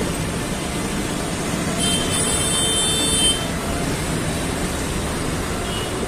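Traffic noise from engines in slow, congested street traffic. About two seconds in, a high-pitched tone sounds for about a second and a half.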